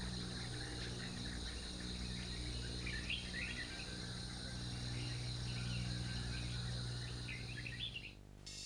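Rural outdoor ambience: a steady insect drone over a low hum, with small birds chirping now and then. It fades out near the end.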